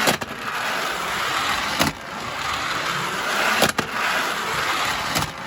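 Lionel No. 52 fire car's small electric motor and wheels running along the track on battery DC power, a steady mechanical whir with a sharp click about every second and a half to two seconds.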